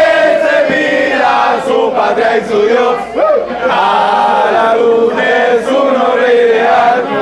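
A group of men singing together in loud chorus, many voices holding long notes.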